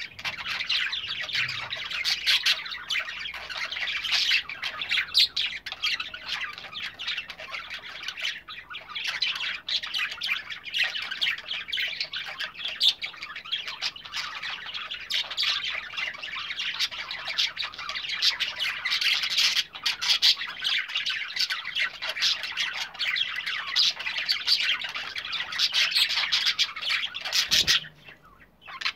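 A flock of show budgerigars chattering and warbling together, a dense, unbroken stream of chirps and squawks from many birds. It drops out for a moment just before the end.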